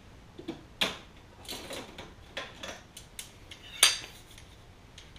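Metal hand tools being handled on an engine block: a string of irregular clinks and clanks, the sharpest about four seconds in.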